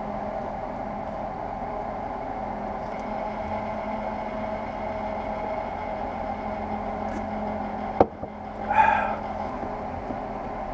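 A steady mechanical hum runs throughout. About eight seconds in, an aluminium drink can is set down on a wooden desk with a sharp knock, followed by a short vocal sound.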